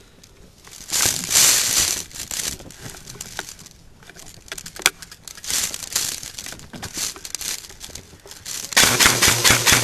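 Rustling and crunching of a player moving through brush, clothing and gear brushing, in uneven bursts. Near the end a quick, regular run of sharp clicks starts.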